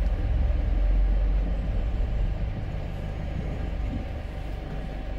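Low engine rumble of traffic heard from inside a van's cab, stronger for the first two seconds and then settling to a steadier, lower level.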